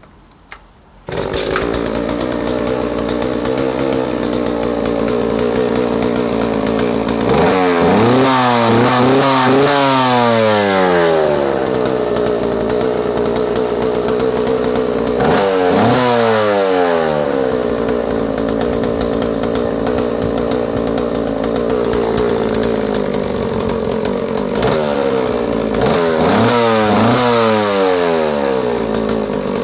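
JoBu L6 56cc vintage two-stroke chainsaw, power head only with no bar or chain, starting abruptly about a second in and then running steadily. It is revved up and back down in three clusters of quick throttle blips, about a quarter of the way in, at the middle, and near the end.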